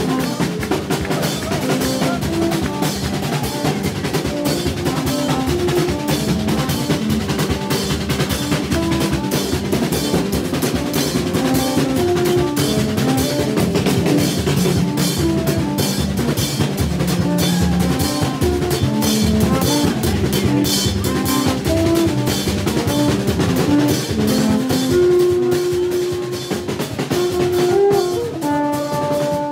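A live Junkanoo band playing: a dense, fast rhythm of hand drums with bright cymbal and bell strikes, and a line of short horn notes over it. Near the end the horns hold longer notes.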